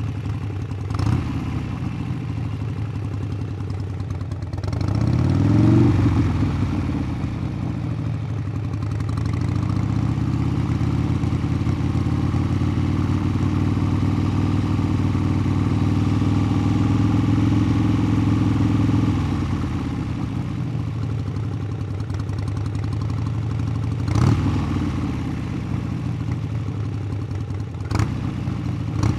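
Motorcycle engine idling, revved up and back down about five seconds in, then held at a raised speed for about ten seconds before settling back to idle, with short throttle blips near the end.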